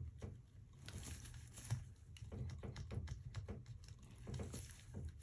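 Plastic twist-and-set toilet repair flange being pushed and worked down into a drain pipe by hand: faint, irregular scraping and small clicks of plastic rubbing against the pipe, over a steady low hum.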